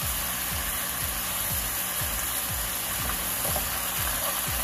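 Chicken thighs and garlic sizzling in oil in a frying pan, the stock having cooked down to nothing. Background music with a steady low beat about twice a second plays over it.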